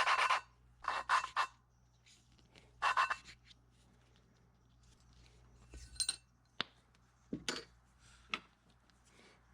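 A valve being lapped into its seat on an H22 cylinder head: short bursts of gritty rubbing as the valve is spun back and forth against the seat with lapping compound, then a few light metal clinks about halfway through.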